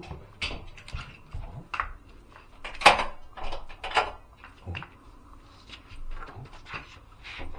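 Clicks and knocks of a front door's lock and latch being worked and the door opened, the loudest clack about three seconds in.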